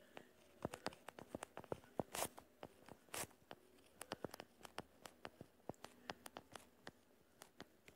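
Faint, irregular taps and small scratches of a stylus writing on a touchscreen, with two louder clicks about two and three seconds in.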